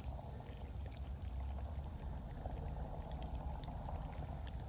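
Water running steadily out of the 275-gallon rain-catchment tanks as they are drained. A steady high insect trill carries on underneath.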